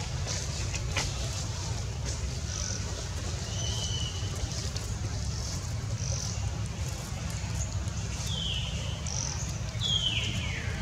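Outdoor ambience: a steady low rumble under short high chirps every second or so, with two falling whistled calls about eight and ten seconds in.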